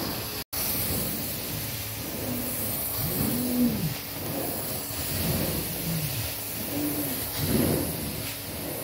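Hot water extraction wand drawn back and forth over wet carpet under strong vacuum suction: a steady rushing hiss with a low whistling tone that rises and falls with each stroke. The sound cuts out completely for an instant about half a second in.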